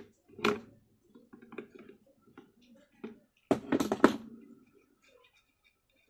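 Pliers working the brass terminal nuts of a table fan's switch: a few scattered metal clicks, then a louder burst of tool clatter about three and a half seconds in.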